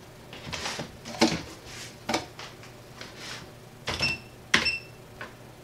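Irregular clicks and knocks from keys being pressed on a computer keyboard and hands handling the desk gear. Two of the clicks, about four seconds in, carry a short high ring.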